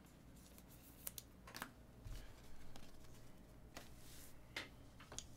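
Near silence with a handful of faint, scattered clicks and taps.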